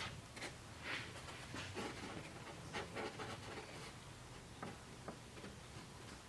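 Faint rustling and a few small clicks of hands handling small parts at a workbench, scattered through the first five seconds.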